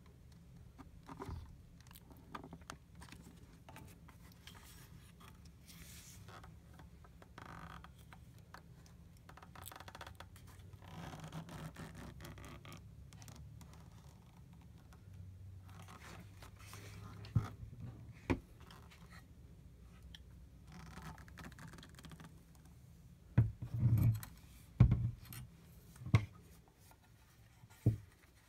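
Hands handling a Polaroid CB-72 film back and Polaroid 600SE camera: plastic scraping and rubbing, then a handful of sharp clicks and knocks, most of them in the last few seconds as the back is fitted to the camera body.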